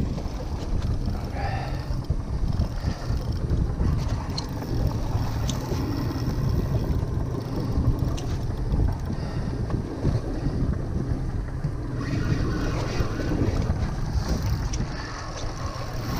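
Wind buffeting the microphone over the low, steady running of a fishing boat's engine.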